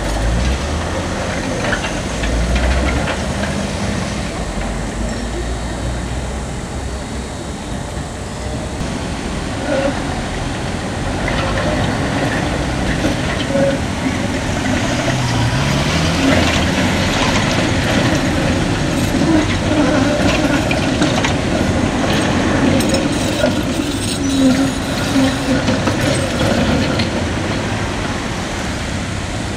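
Electric city trams running through a street junction: steel wheels rumbling and clattering on the rails, mixed with passing car traffic. A short rising whine comes about halfway through.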